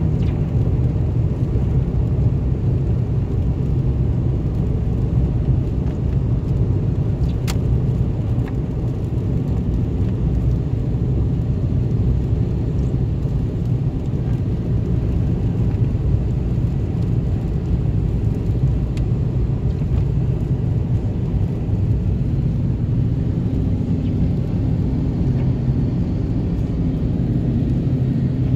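Steady low road and engine rumble of a car driving at highway speed, heard from inside the cabin, with tyres running on wet pavement. A single sharp click about seven seconds in.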